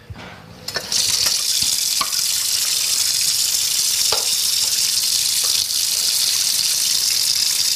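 Running water, switched on about a second in and then flowing as a steady hiss, with a few faint knocks over it.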